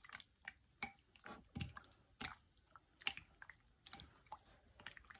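Seasoned raw salmon and shrimp being mixed in a bowl: irregular soft wet squishes and clicks, a few a second, the loudest just past two seconds in.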